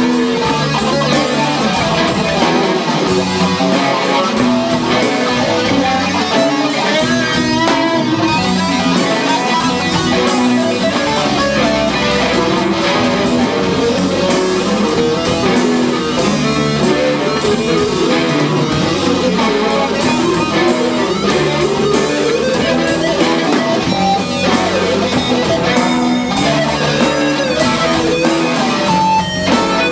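Live rock band playing an instrumental stretch, with electric guitars, bass guitar and drum kit, steady and loud throughout.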